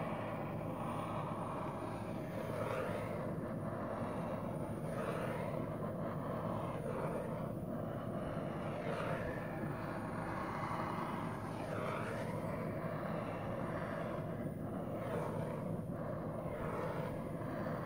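Handheld torch flame burning with a steady rushing roar as it is swept over wet acrylic paint, hot enough to scorch the paint when held too close.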